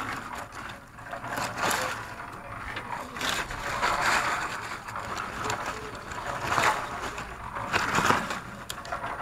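Grapevine leaves rustling and crackling as hands push through the foliage and pull grape clusters off the vine, right against the microphone, with irregular snaps and clicks.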